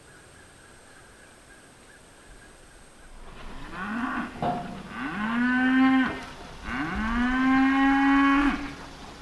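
Cattle mooing. After about three seconds of quiet come a couple of short calls, then two long moos, each held at a steady pitch.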